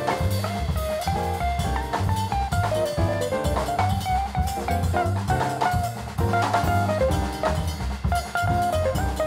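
Background music: a jazzy tune with a drum kit keeping a steady beat and a melodic line over a walking bass.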